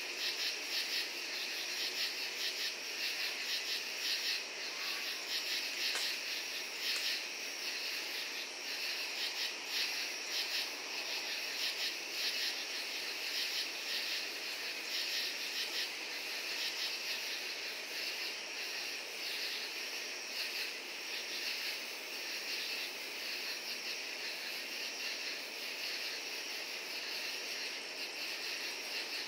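Night chorus of crickets and katydids: many insects calling at once in a steady, dense layer of fast-pulsing, high-pitched chirps and trills.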